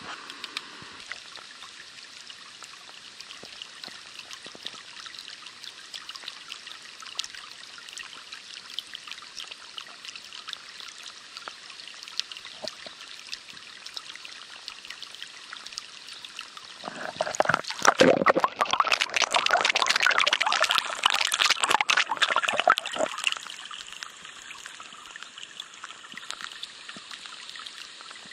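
Storm water welling up and splashing out of an overflowing road manhole, with a steady hiss of rain and running water. The splashing gets much louder for about six seconds, two-thirds of the way in, then settles back.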